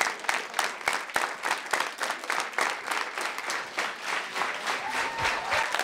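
Theatre audience applauding: many hands clapping at once in a dense, irregular patter.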